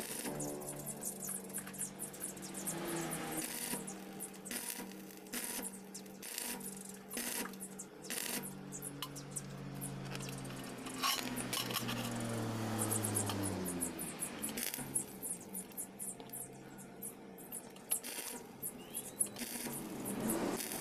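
Sharp metallic clicks and clinks from a steel roller chain and welding rod on a steel plate, with spells of stick-welding arc crackle as the chain is tack-welded to the plate.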